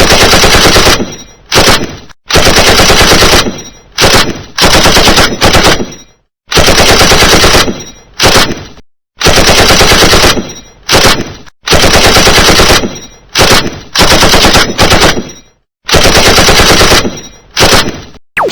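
Machine-gun sound effect: loud automatic gunfire in repeated bursts, some short and some about a second long, each trailing off in an echo.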